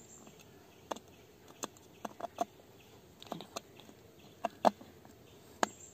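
Small screwdriver tightening a wire terminal screw in a solar panel's plastic junction box: scattered light clicks and ticks, about ten in all, the loudest a little after four and a half seconds in.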